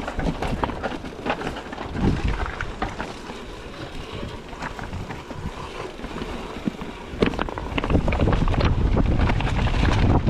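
Mountain bike on a rough, stony trail: the bike rattling and the tyres knocking over rocks, with wind buffeting the microphone. The wind rumble gets much louder about eight seconds in.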